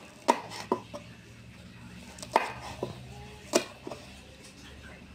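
Kitchen knife chopping green chilies on a wooden cutting board: three sharp knocks of the blade on the wood, each followed by one or two lighter taps.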